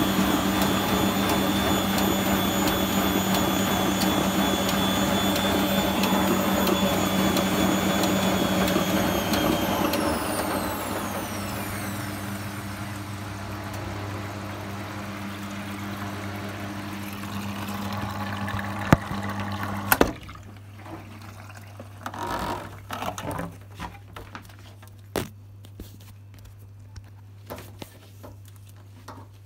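Arçelik 4120 S washing machine running its drum-cleaning cycle: a steady motor whine that falls in pitch and fades about ten seconds in, over a steady low hum. Two sharp clicks come about two-thirds of the way through, after which it is much quieter with a few small knocks.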